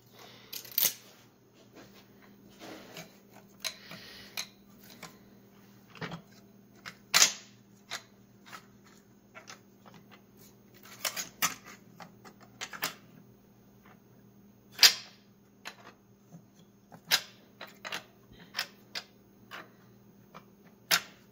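Scattered metallic clicks and clinks of steel transmission parts being handled as the 2-4 band is worked into a 4L60E case around the input drum, with a faint steady hum underneath.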